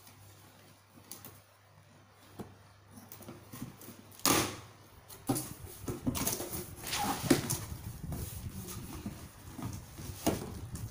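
A cardboard box being opened by hand: quiet at first, then a short, loud tearing sound about four seconds in, followed by uneven rustling and scraping of cardboard flaps and plastic packing.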